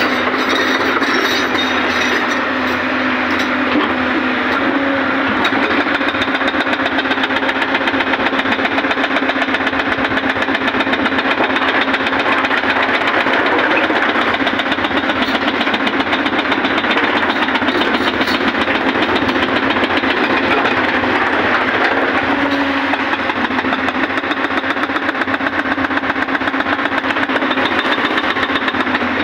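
Hyundai 215L crawler excavator's diesel engine running steadily under load while the boom and bucket work a rock face.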